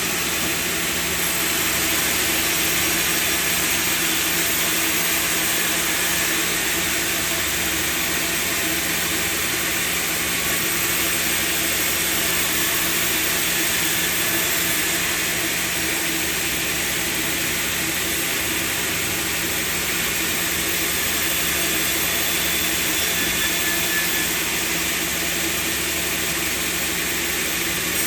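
Sawmill machinery running steadily: an even mechanical hum under a constant hiss, with no change in load.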